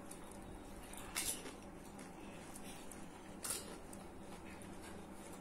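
Eating sounds of crisp pani puri shells: two short crunches about a second in and again near the middle, with faint chewing between.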